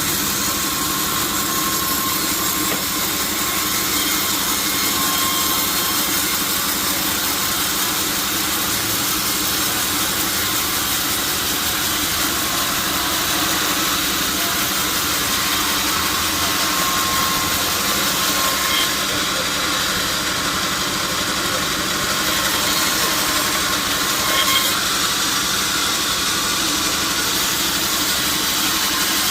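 Sawmill saw machinery running steadily: a constant engine-like drone with a hissing noise over it, no change in level.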